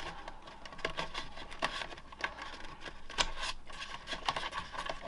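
Small plastic servo plugs being pulled by hand off the pin header of an RC plane's gyro stabilizer: irregular light clicks with rubbing of the wires, one sharper click a little past three seconds in.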